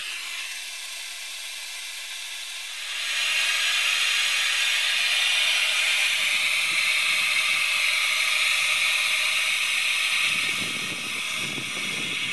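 Compressed air hissing through a STIS central tire inflation system while the tire pressure is being adjusted. It grows markedly louder about three seconds in and then holds steady.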